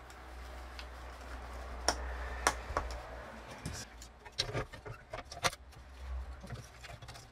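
Clicks and light clattering as loudspeaker drivers and their wires are handled and set into the empty plastic cabinet of a Hitachi TRK-3D2W boombox, with a few sharp knocks that come closer together after about four seconds. A low steady hum runs underneath.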